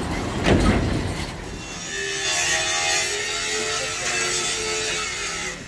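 A few knocks in the first second or so, then a steady rasping scrape that cuts off abruptly near the end.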